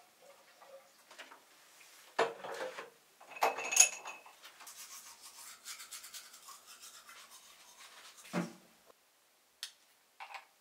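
Scrubbing and rubbing noises, with two louder knocks and a brief ringing clink in the first half and two short sharp clicks near the end.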